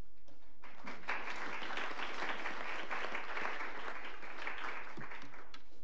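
Audience applause at the close of a speech, starting about half a second in and dying away near the end.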